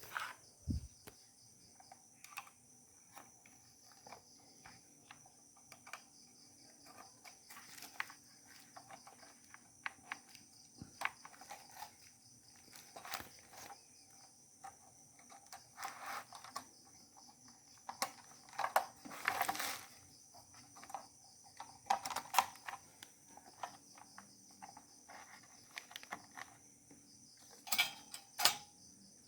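Irregular small clicks, taps and rattles of computer hardware being handled and fitted: a CPU heatsink being mounted and cable connectors being plugged into a motherboard on a test bench. A faint steady high hiss lies underneath.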